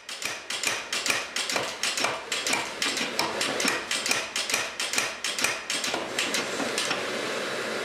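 Mechanical power hammer striking a hot-cut chisel (tranchet) held on a red-hot plate of bloomery steel, hot-cutting it into plaquettes: a fast run of metal-on-metal blows, about five a second, that blur into a steadier clatter near the end.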